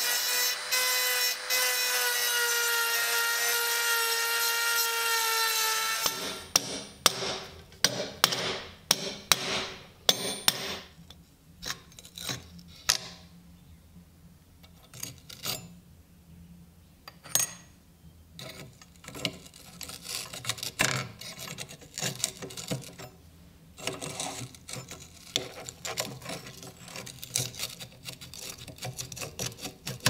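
A handheld rotary tool grinds down the head of the iron rivet holding a rusty padlock's stacked lever plates, giving a steady high whine for about six seconds before it stops. The rest is irregular metal clicks and scrapes as the loosened rusty lever plates are prised off with pliers.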